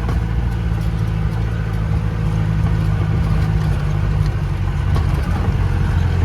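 Mahindra jeep's engine running steadily while driving over a rough off-road track, heard from inside the open jeep.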